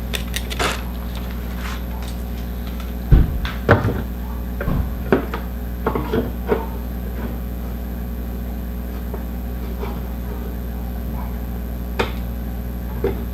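Scattered clicks and knocks of a car accessory light and its mounting hardware being handled and fitted, over a steady low hum.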